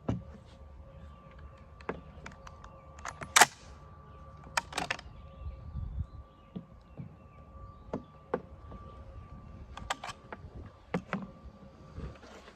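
Scattered clicks, knocks and short scrapes of a Schmidt-Rubin 96/11 rifle's metal and wooden parts being handled as it is taken apart, the loudest knocks about three and a half and five seconds in, over a faint steady hum.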